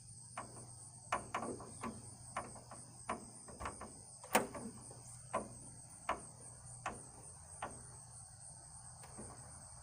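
Steady high chirring of crickets, with about a dozen irregular sharp clicks and knocks of handling, the loudest about four and a half seconds in.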